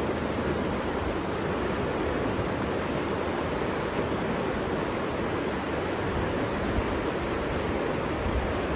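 Steady rushing of a flowing river, even and unbroken.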